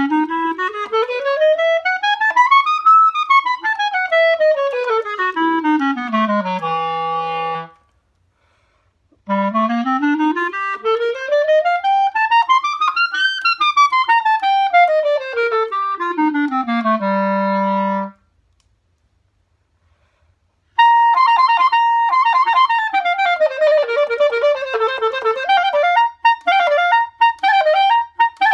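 Solo clarinet playing two fast scales, each climbing about three octaves from its lowest notes and straight back down to a held low note. After a short pause, it starts a melodic passage on a long high note.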